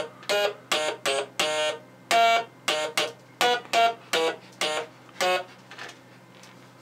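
Stylophone played with its metal stylus: a string of short, buzzy notes at changing pitches, about two to three a second, that stops about five seconds in, with a couple of faint notes just after.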